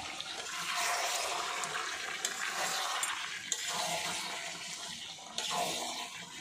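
Water running and splashing steadily, as from a tap or poured water, with a few sharp clinks.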